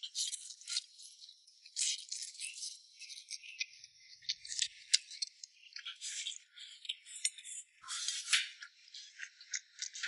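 Eating sounds: a busy, irregular run of small high clicks and taps, as of utensils and bowl while eating, with chewing.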